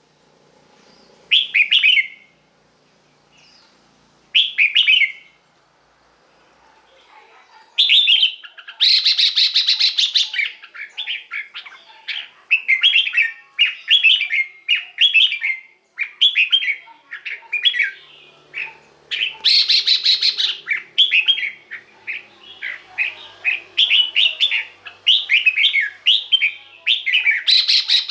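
Red-whiskered bulbul singing short, bubbly warbled phrases. At first they come a few seconds apart; from about a third of the way in they follow one another rapidly, broken three times by louder, harsher bursts. A faint, steady high whine runs underneath.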